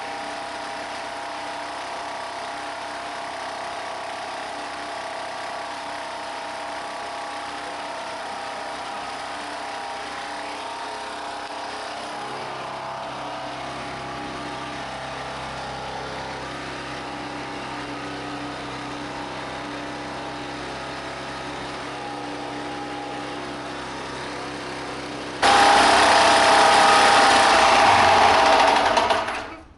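Small single-cylinder generator engine running steadily with a small noise from a damaged connecting-rod bearing. About 25 seconds in it suddenly becomes much louder for about four seconds, then cuts off abruptly.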